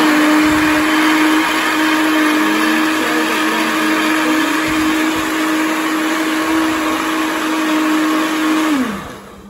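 Electric countertop blender running at one steady speed, blending parsley with water into a liquid; near the end it is switched off and the motor winds down.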